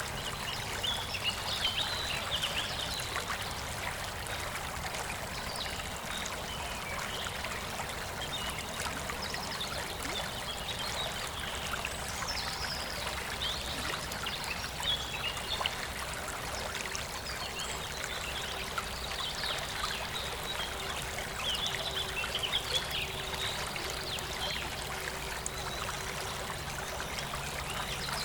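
Steady rain with small birds chirping and singing on and off over it.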